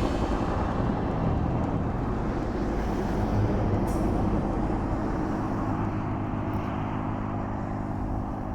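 Firefighting helicopter's engine and rotor running steadily, slowly fading toward the end as it moves off.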